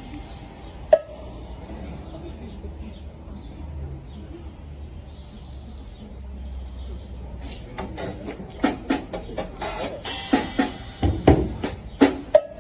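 Drum-like percussive hits in a quick, uneven rhythm, starting about two-thirds of the way through, after a stretch of low hum broken by a single sharp click.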